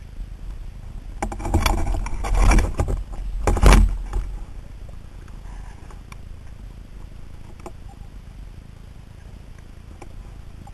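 Underwater handling noise picked up through a diver's camera housing: a couple of seconds of rattling, rushing noise with clicks about a second in, loudest near the middle of that stretch, then a low steady underwater noise with a few faint clicks.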